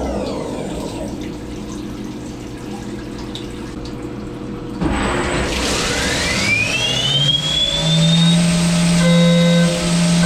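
CNC milling machine between cuts. Its spindle whine falls away early on, then about five seconds in a rush of coolant starts and the spindle spins back up with a rising whine that settles into a steady high tone.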